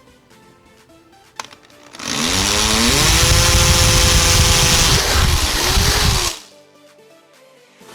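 Power drill spinning up and running at speed for about four seconds, drilling into a fiberglass front bumper, with a brief dip in speed near the end before it stops.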